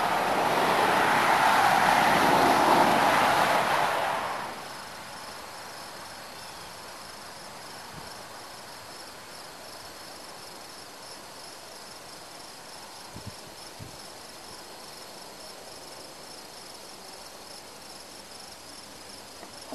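A loud rushing noise swells and fades away over the first four seconds or so. After it, insects chirr steadily in the background, with a couple of faint knocks in the middle.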